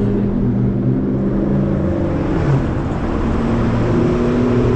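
Motor vehicle engine running steadily while moving through traffic, its several pitch lines holding nearly level with small shifts.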